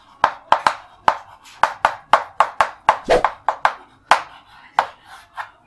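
Chalk striking and dragging on a chalkboard while an equation is written: an irregular run of short, sharp taps, about three to four a second.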